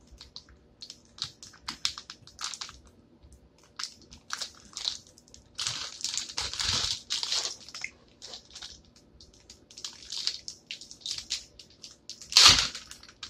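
Plastic food packaging crinkling and crackling as it is torn open and handled, in many short rustles. A denser stretch of rustling comes midway, and a louder rustle near the end.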